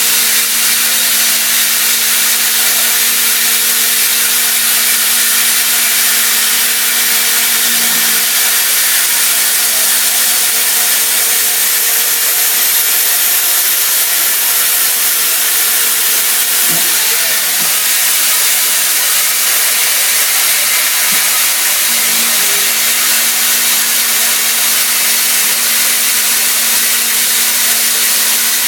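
Haas CNC mill cutting 30% silicon-carbide-reinforced aluminium with a CVD diamond end mill under coolant: a steady hiss with a low steady hum beneath it, and a few faint knocks.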